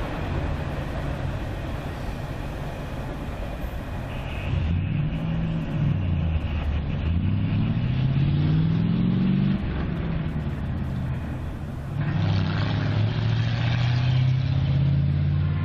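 Road vehicle engine accelerating, its pitch rising and dropping back twice through gear changes, then a steady engine hum, after the rumble of a departing freight train in the first few seconds.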